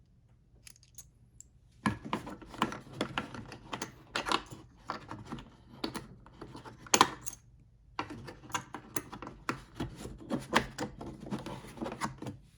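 Steel snap ring pliers, their removable tips and the plastic case being handled: a quick run of clicks, rattles and rubbing, starting about two seconds in, pausing briefly, then carrying on.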